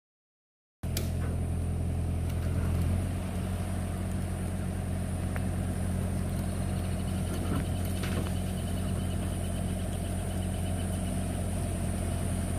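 Heavy machine's diesel engine, most likely the excavator on site, idling steadily; it comes in about a second in, after a brief silent gap.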